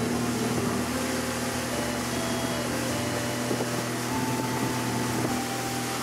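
A 40 hp outboard motor running steadily at cruising speed, a constant low drone, with water and wind rushing past the fast-moving boat.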